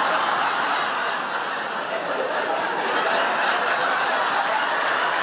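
Studio audience laughing, a full, steady wave of laughter that carries on without a break.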